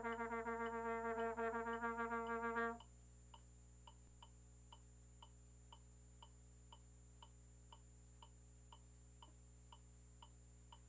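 Tenor trombone holding one long, steady note, cut off abruptly about two and a half seconds in. After that there is only a faint, even ticking about twice a second.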